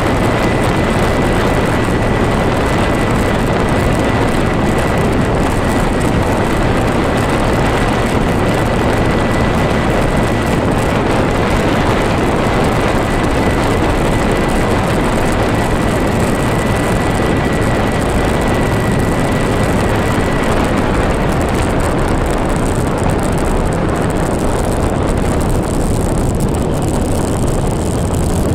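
Steady rushing road and wind noise from a vehicle moving along a paved road. A thin, high, steady whine runs over it and stops about two-thirds of the way through.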